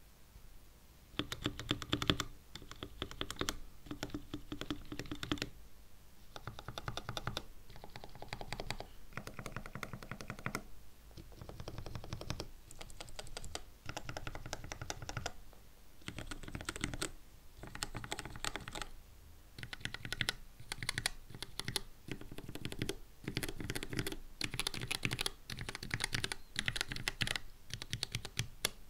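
Mechanical keyboard with lubed Gateron Red linear switches, 62g springs, PBT keycaps and an aluminium case, keys clicking rapidly in runs of a second or two with short pauses between, as in a sound test of individual keys one after another.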